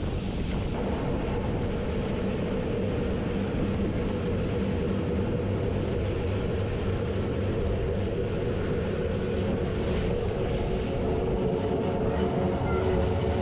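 Rhaetian Railway metre-gauge passenger train running steadily on the rails, a continuous rumble heard from an open carriage window.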